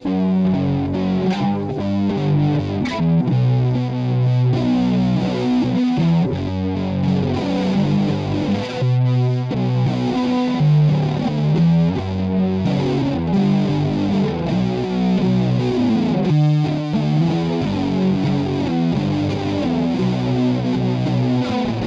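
Intro music: distorted electric guitar with effects, playing a steady run of notes.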